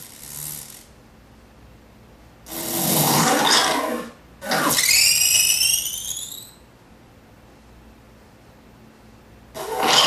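Circuit-bent Sounds of Nature flashlight toy playing short, distorted, pitch-bent animal-sound clips in separate bursts with quiet gaps between them. About five seconds in comes a warbling squeal that slides up in pitch for about two seconds; the pitch bend is worked by a photoresistor.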